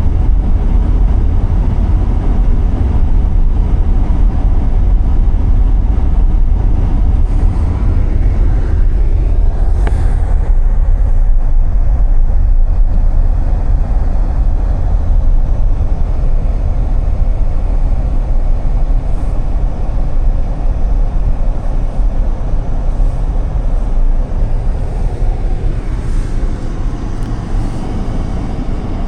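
Car driving on a snowy road: a steady low rumble of road, tyre and engine noise, easing off slightly near the end.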